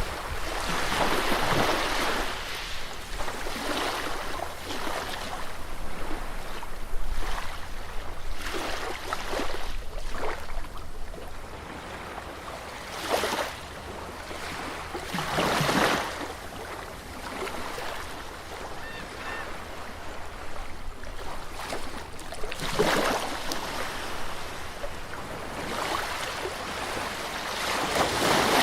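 Sea waves breaking and washing onto a beach, each swell of surf rising and fading every few seconds, with the biggest surges about a second in, around 13 and 16 seconds, near 23 seconds and near the end. A steady low rumble runs underneath.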